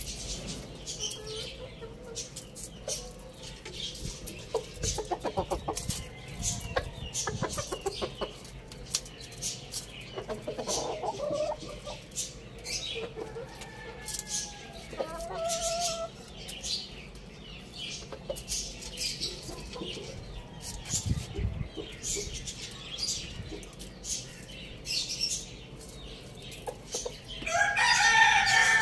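Young roosters clucking, with scattered light taps and scratches. Near the end comes the loudest sound, a rooster crow of about two seconds that falls in pitch.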